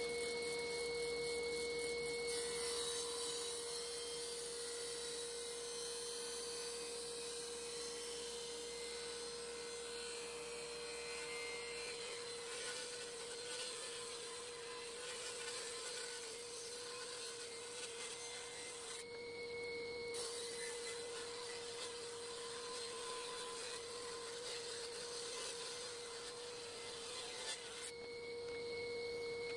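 Table saw running with a steady whine, ripping an ash board into thin strips.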